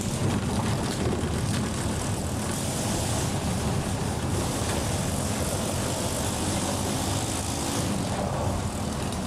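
Vehicle driving fast on a gravel road: a steady engine drone with rumbling tyre and wind noise.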